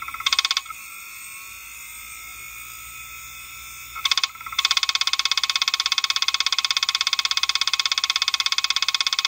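Kalok KL-320 MFM hard drive running with its cover off: a steady whine from the spinning platters, broken by the head actuator buzzing in rapid seeks, a short burst near the start, another about four seconds in, then a continuous fast-pulsed buzz for the last five seconds. The drive is badly damaged and runs on three heads, its top head arm cut off.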